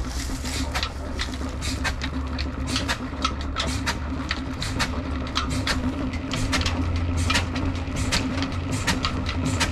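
Old stationary diesel engine running steadily, driving a tubewell pump by a flat belt. A run of sharp clacks sounds throughout, over the rush of water pouring from the outlet pipe.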